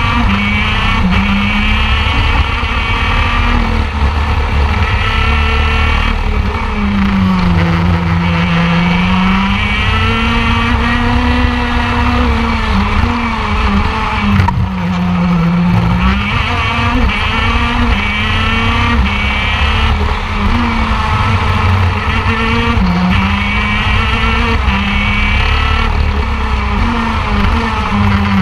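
Two-stroke 125cc shifter kart engine (TM KZ10) heard onboard, running at high revs along the straights. The engine note drops and climbs back several times as the kart slows for corners, with a low rumble of vibration and wind underneath.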